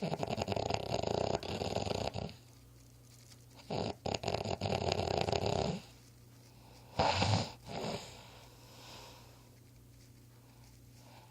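Snoring: two long, fluttering snores of about two seconds each with a pause between, then two short snorts around seven seconds in.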